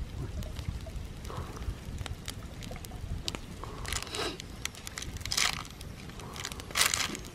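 Open wood fire crackling with frequent small sharp pops. In the second half a stick rakes through the embers and ash three times, each a brief rough scrape.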